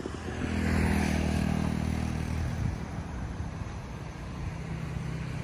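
A motor vehicle's engine going by on the road, loudest about a second in with a hiss of road noise, then dying away. A second, lower engine note comes in a little after the middle and carries on.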